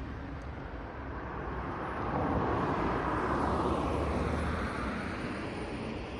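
A road vehicle passing by, its tyre and engine noise swelling about two seconds in and fading away toward the end, over steady traffic hum.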